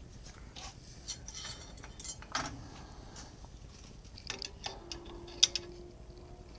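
Scattered light metal clicks and taps as steel toe clamps and a small steel plate are shifted and set on a cast-iron drill press table, with one sharper click late on. A faint steady hum comes in about two-thirds of the way through.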